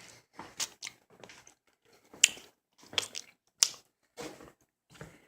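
Mouth sounds of someone sucking and chewing a sour hard candy: irregular wet clicks and smacks, about a dozen over a few seconds.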